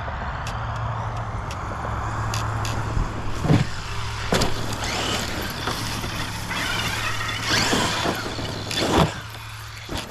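Redcat Piranha 1/10-scale electric RC truggy driving, its brushed motor and gears whining in four short loud bursts of throttle, with tyre and ground noise between.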